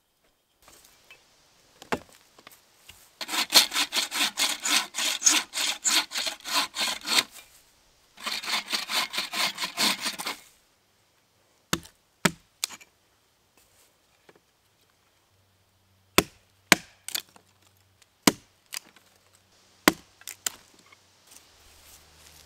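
Wood being sawn by hand in two runs of quick, even strokes. After that comes a series of single sharp knocks of a hatchet chopping into wood.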